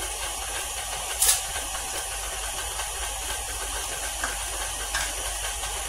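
KitchenAid Classic stand mixer running steadily, its beater creaming margarine and sugar in a stainless steel bowl, with a short clack about a second in and another near the end.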